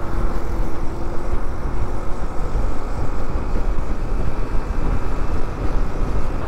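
Motorcycle riding at road speed: engine and a steady rush of wind and road noise. A steady hum fades out about a second and a half in.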